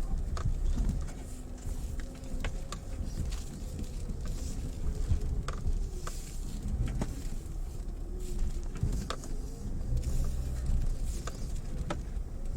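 Mitsubishi Pajero Mini kei SUV driving slowly over a stony riverbed track: low engine and tyre rumble with scattered sharp clicks of gravel and stones under the tyres.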